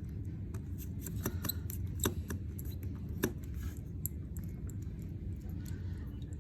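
Small clicks and taps of hand tools and smartphone parts being handled while a phone is put back together, a few sharper clicks standing out among fainter ticks, over a steady low hum.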